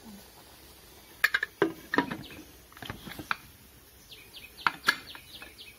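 Sharp metal clicks and knocks as the lid and whistle weight of an aluminium pressure cooker are fitted. A bird chirps a quick run of short notes about four seconds in.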